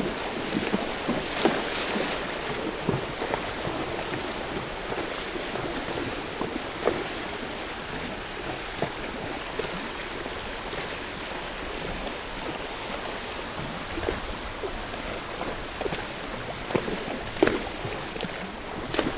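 Rushing water of a rain-swollen creek: a steady wash, with irregular small splashes.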